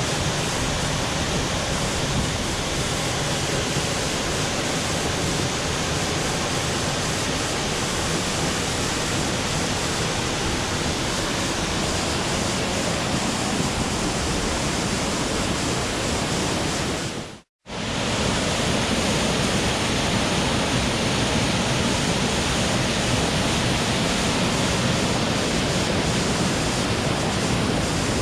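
Waterfall: a loud, steady rush of falling water. The sound cuts out briefly about two-thirds of the way through, then resumes.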